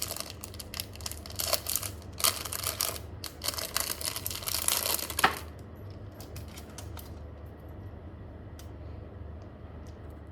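Rustling and crinkling as small kit pieces and their packaging are handled, with many quick crackles for about five seconds. After that it is quieter, with a few small clicks and taps as parts are fitted.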